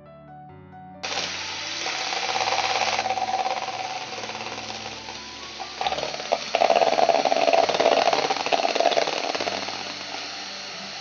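National Gold electric hand mixer switching on about a second in and running at its first speed, its two steel beaters whisking raw eggs in a plastic bowl. The whirr grows louder for a few seconds past the middle, with a few clicks near the start of that stretch. Soft background music plays underneath.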